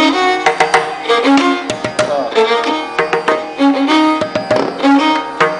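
Instrumental music in an Indian classical style: a melody of held and stepping notes over repeated hand-drum strikes.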